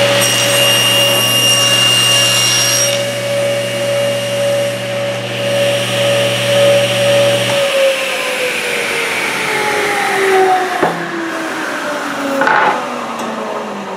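Table saw running with a steady hum while its blade crosscuts a board, a high whine over the first few seconds. About seven and a half seconds in the motor is switched off and the saw spins down, its hum falling steadily in pitch.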